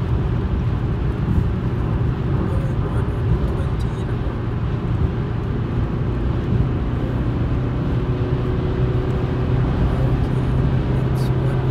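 Steady road, tyre and engine noise heard inside a car cruising at motorway speed. A low drone grows stronger over the last few seconds.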